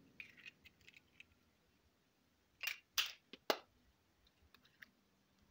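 Egg being cracked against the rim of a ceramic bowl: three sharp cracks close together about three seconds in, with a few light ticks of shell handling around them.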